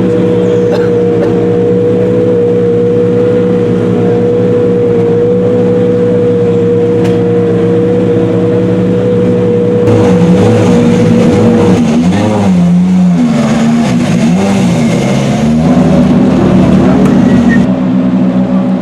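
Rally car engines: one runs at a steady pitch, then about halfway through a louder engine revs up and down, its pitch rising and falling over and over for several seconds.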